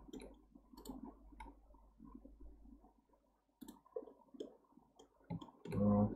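Computer mouse clicks, sharp and irregularly spaced, a few seconds apart. A short low hum from a voice near the end is the loudest sound.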